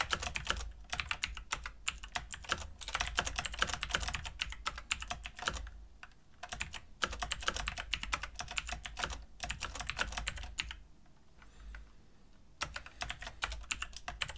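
Computer keyboard typing in rapid runs of key clicks, with short pauses about six seconds in and again around eleven to twelve seconds.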